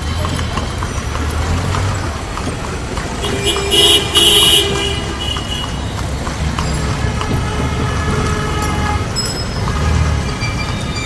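Dense city street traffic, a steady din of engines, cut by a loud vehicle horn blaring in two short blasts about three and a half seconds in, with other horns sounding more faintly later.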